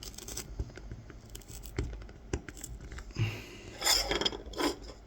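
Small kolrosing knife scoring fine border lines into the wood of a spoon handle: a run of light scratches and ticks as the blade point cuts in. A louder hissing scrape comes about four seconds in.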